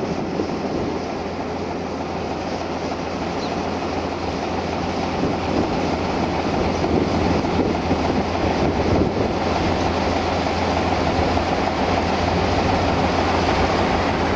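Steady drone of a CFR class 060-DA (LDE2100) diesel-electric locomotive's Sulzer engine running: a constant low hum under a broad rumble, growing slightly louder in the second half.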